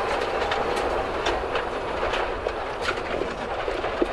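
Rally car running at speed along a stage, heard from inside the cabin: a steady rush of engine and road noise with frequent sharp clicks and rattles.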